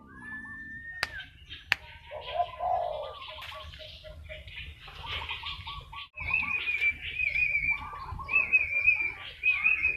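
Caged male watercock calling, a run of repeated wavering notes that grow louder in the second half. A long whistled note opens it, and there are two sharp clicks about a second in.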